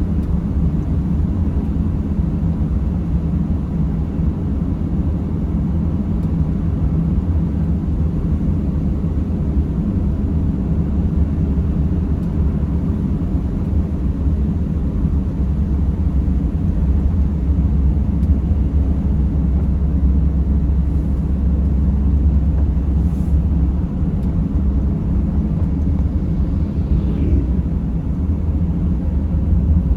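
Mercedes Sprinter van driving: a steady low rumble of engine and road noise, a little louder for several seconds past the middle.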